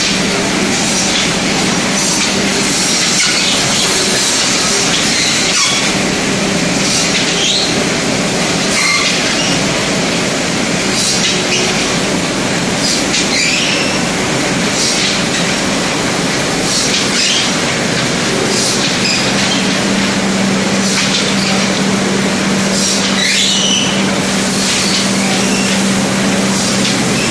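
Wooden broom-handle processing machinery running. It makes a steady hum and a constant rushing noise, broken every few seconds by short high squeals.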